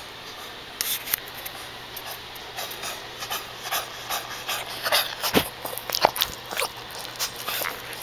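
Shih Tzu struggling to breathe: a series of short, noisy breathing sounds, sparse at first and coming thick and fast past the middle. The labored breathing is a symptom of the dog's heart disease.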